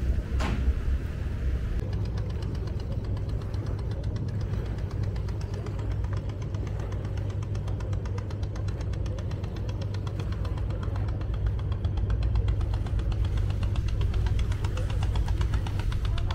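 Boat engine running steadily with a rapid, even knock over a low rumble. A single sharp click just after the start.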